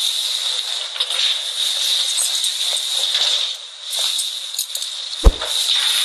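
A steady high hiss with faint shaker-like rattling, broken a little after five seconds in by a single sharp, low thump.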